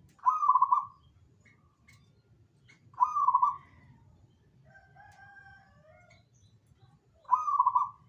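Zebra dove (perkutut) cooing: three loud, short trilled phrases about three to four seconds apart, with fainter, lower calls between the second and third.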